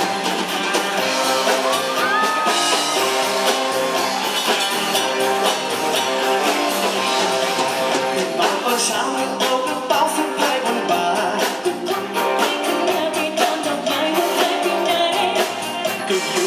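Live pop-rock band playing: drums, bass guitar and electric guitars, with vocals sung through microphones over them.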